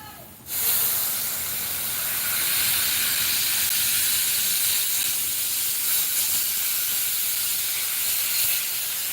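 Welding arc hissing steadily. It stops briefly and strikes again about half a second in.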